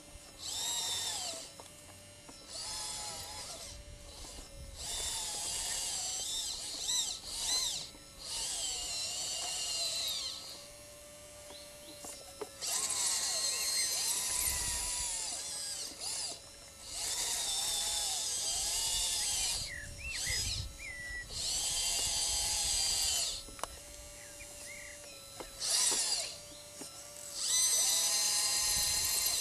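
Electric motors and hydraulic pump of a radio-controlled scale model Liebherr LR 632 hydraulic track loader whining in repeated bursts of one to three seconds. The pitch rises and falls as the model drives and works its bucket.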